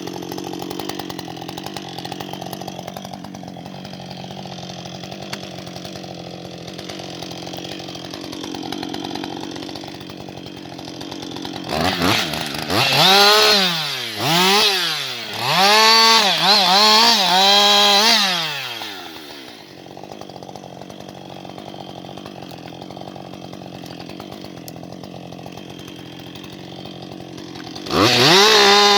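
Husqvarna 560XP two-stroke chainsaw idling steadily, then revved in several quick throttle blips, each rising and falling in pitch, from about twelve to nineteen seconds in. It drops back to idle and is revved up high again near the end.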